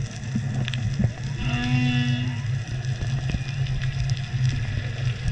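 Whale song heard underwater: a long, pitched moan with a stack of overtones about one and a half seconds in, among shorter wavering calls. Underneath is a steady low hum with scattered clicks.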